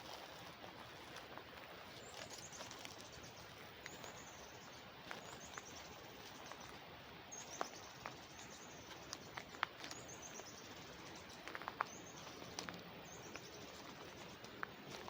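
Water running steadily in an irrigation channel, with a bird repeatedly singing a short, high, falling trill from about two seconds in. Scattered light clicks sound throughout.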